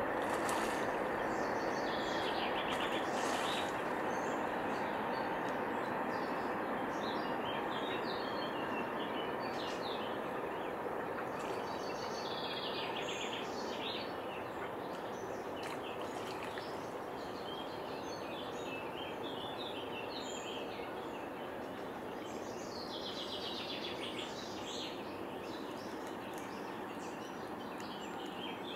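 Small birds chirping and singing on and off over a steady background hiss of outdoor noise that slowly grows quieter.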